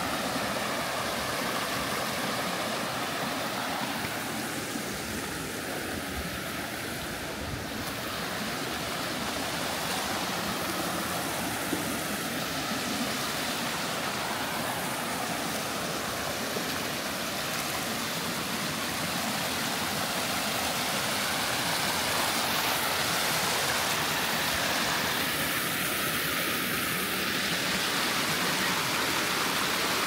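Water rushing down the tiers of Erawan Waterfall, a steady full rush that grows a little louder about two-thirds of the way through.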